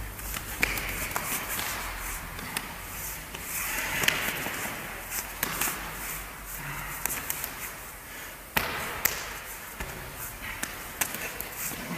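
Irregular sharp slaps and thuds of arms and hands striking, blocking and trapping in Wing Tsun chi sau sparring, a few of them much louder than the rest.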